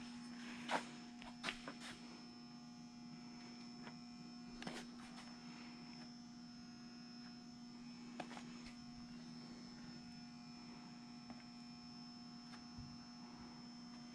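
A steady electrical hum, with a few faint taps: a little under a second in, twice in the first two seconds, near five seconds and near eight seconds.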